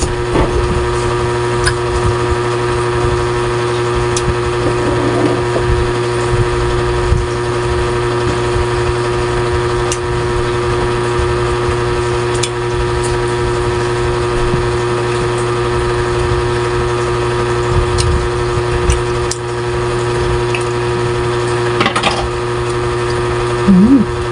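Steady hum of a running motor, holding several constant tones, with scattered small clicks of someone eating shrimp.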